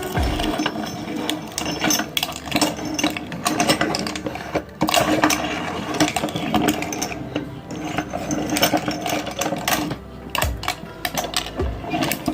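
Electric meat grinder running, its motor humming steadily under a dense run of sharp clicks and knocks, as glass marbles clatter and crack in the grinder.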